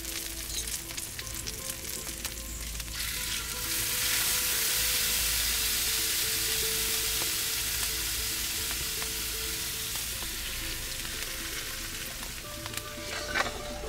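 Two ribeye steaks searing in clarified butter in a very hot cast iron skillet: a steady crackling sizzle that grows louder about four seconds in, as the steaks are turned with tongs onto their unseared side. A brief clatter comes near the end.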